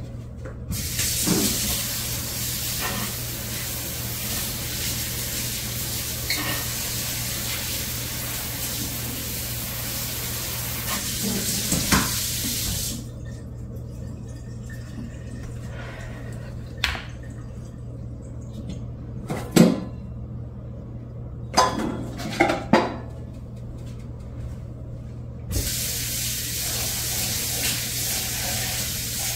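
Kitchen faucet running as a metal mesh strainer is rinsed under it, shut off about 13 seconds in. A few sharp clanks and knocks of the strainer and dishes follow, and the tap runs again for the last few seconds.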